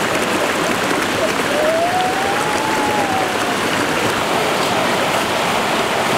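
Steady rushing of a stream over rocks. A faint thin tone rises and then falls about two seconds in.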